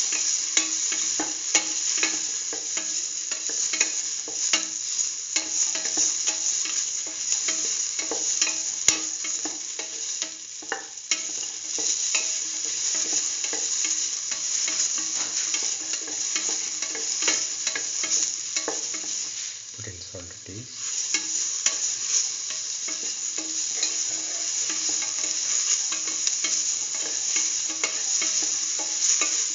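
Chopped bell peppers, shallots, garlic and green chili sizzling in oil in a steel pan, with a spatula scraping and clicking against the pan as they are stirred. The sizzle dips briefly about twenty seconds in.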